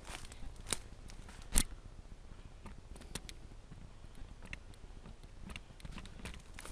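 Dry sticks and twigs cracking and clacking in scattered sharp clicks as they are handled, the loudest crack about one and a half seconds in.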